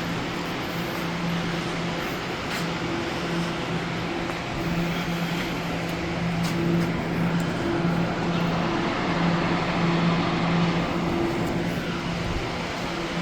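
Electric train running: a steady broad rumble with a low electrical hum that drops in and out, swelling a little in the middle.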